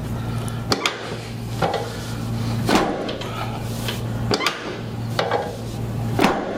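Several sharp knocks and clicks, roughly one a second at uneven intervals, from hands-on chiropractic work on the patient and the treatment table, over a steady low hum.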